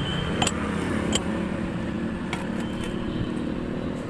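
Street background with a steady low rumble of road traffic, and a few sharp clinks, about half a second, one second and two and a half seconds in.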